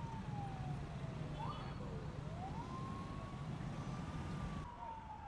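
Motorcade escort sirens wailing, with the pitch gliding slowly down and back up, over the low rumble of vehicles. The rumble drops away suddenly near the end while the siren carries on.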